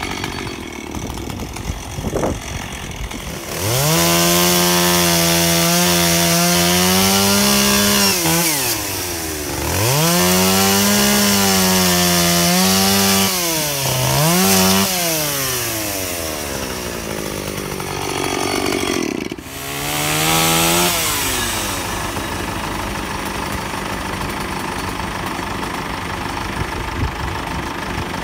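Chainsaw revved hard in about four bursts, its pitch sagging between them as the throttle is eased, while cutting tree branches.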